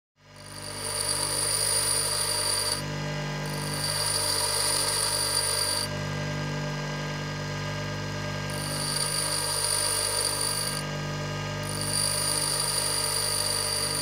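Bench grinder running with a steady hum while a steel twist drill's point is pressed to its white grinding wheel. The grinding hiss comes in four passes of about two and a half seconds each, with short breaks as the bit is lifted and repositioned, sharpening the drill's cutting lips by conical grinding.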